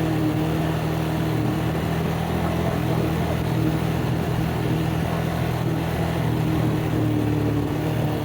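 ATV engine running at a steady, unchanging pitch under a rough, noisy haze.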